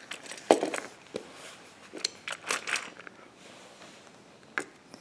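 Small toy trains and plastic track pieces knocking and clattering as they are handled: a sharp knock about half a second in, a quick run of clicks and taps between two and three seconds, and one more knock near the end.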